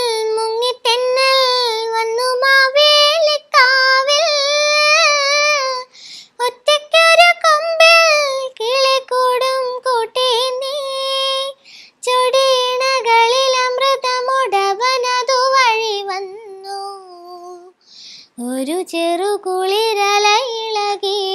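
A young girl singing a Malayalam song solo, with no accompaniment, in long phrases broken by short pauses for breath.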